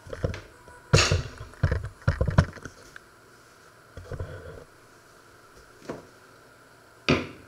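Kitchen clatter: a run of knocks and clanks as kitchen items are handled and set down on a wooden worktop, bunched in the first couple of seconds, then a few more, with one loud knock near the end.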